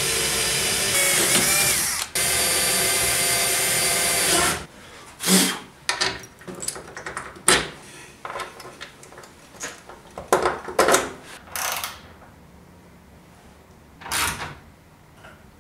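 A 10.8 V cordless drill runs steadily at a mounting hole in a miter saw's base, pausing for an instant about two seconds in, and stops about four and a half seconds in. Scattered clicks and knocks of handling the saw and its parts follow.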